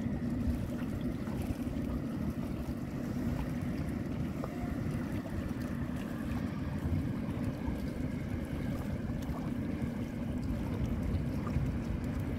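Steady low wind rumble buffeting the microphone by open, choppy water.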